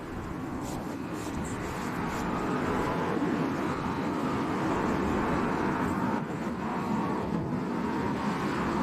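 Vehicle noise: a steady rushing sound that builds over the first few seconds and then holds.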